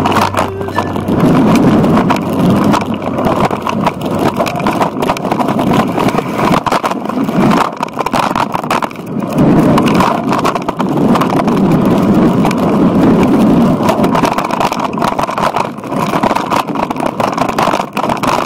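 Wind buffeting a bike-mounted action camera's microphone as a mountain bike rides along a dirt trail, with the tyres rolling and rattling over the rough ground in an uneven, loud rush.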